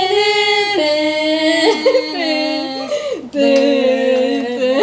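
Women singing long held notes a cappella, the pitch stepping down and back up several times with a short glide about three seconds in.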